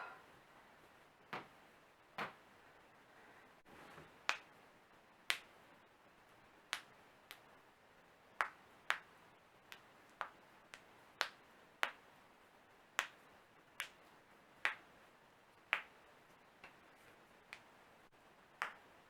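Finger knuckles cracking one after another: a run of sharp single pops, roughly one a second.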